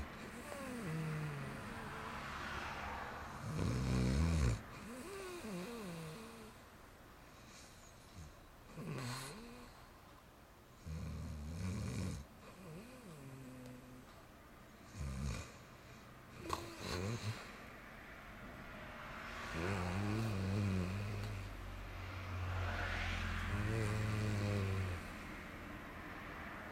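A sleeping person snoring with no Nastent nasal tube in: a series of irregular snores with quiet gaps between them, ending in two longer, low snores.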